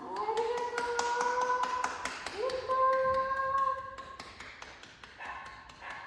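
Rapid repeated knocking on a window or door, about five knocks a second, the kind of knock a hearing dog is trained to alert its deaf handler to. Two long, steady, high tones sound with it, each rising at its start, near the beginning and about two and a half seconds in.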